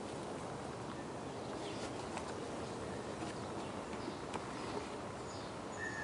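Steady outdoor background noise with a few faint bird chirps and some light clicks from wooden beehive parts being handled.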